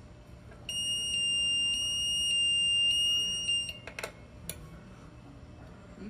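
Magnetic pull-cord safety clip alarm on a wheelchair sounding: a high electronic tone pulsing a little under twice a second for about three seconds. It is set off when the cord is pulled and the magnet leaves the sensor. Two sharp clicks follow about four seconds in.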